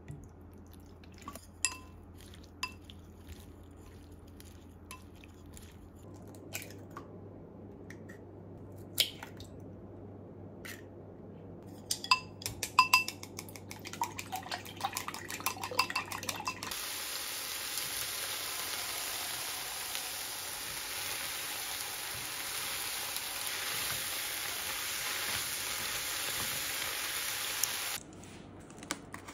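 Scattered light clicks of kitchen work, then chopsticks beating eggs in a glass bowl, with a quick run of clicks against the glass about twelve seconds in. After that a steady hiss lasts about ten seconds and cuts off near the end.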